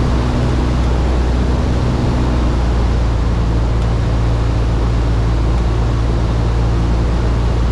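Cessna 172's four-cylinder piston engine and propeller running steadily in flight, heard as a loud even drone inside the cabin with a hiss of air noise over it.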